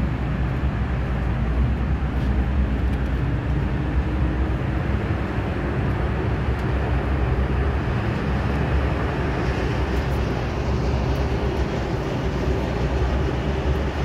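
MTR M-Train heard from inside the car, running with a steady low rumble of wheels and traction equipment as it leaves the platform and enters the tunnel.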